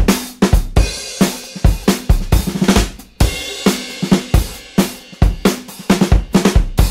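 Background music with a fast, steady drum-kit beat: kick drum, snare and cymbals.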